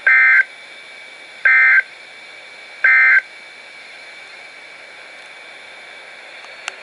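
NOAA Weather Radio's EAS end-of-message signal: three short bursts of shrill digital data warble, about a second and a half apart, marking the end of the alert broadcast. Between and after them the radio gives a steady low hiss, with a faint click near the end.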